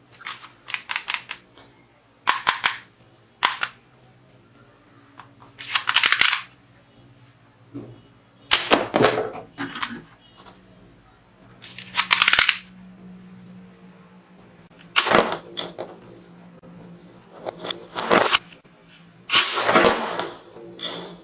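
Plastic toy revolver being fired again and again at plastic bowling pins: sharp snapping shots, some in quick runs of several. These alternate with a few longer, noisier bursts.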